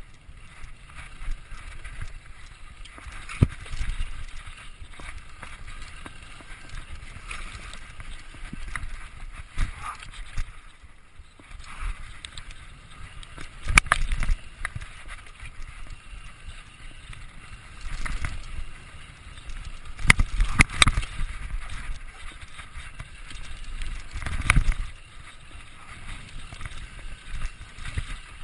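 Mountain bike ridden downhill over a rough dirt and leaf-covered trail without its chain: tyre noise and rattling of the bike, with several sharp knocks as it hits bumps and roots.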